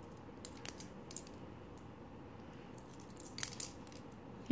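Faint clicks and clinks of large acrylic charms and a metal chain bracelet knocking together as the wrist turns: a couple of single taps, then a short cluster near the end.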